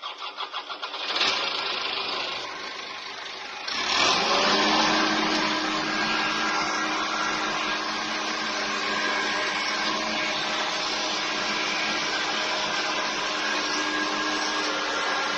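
Diesel truck engine running steadily under load as a sugarcane truck and trailer pull out across the field, a continuous mechanical drone that gets louder about four seconds in.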